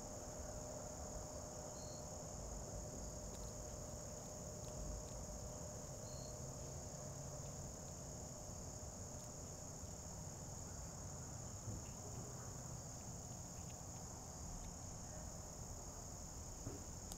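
Steady, high-pitched chorus of insects, unbroken throughout, over a low background hum.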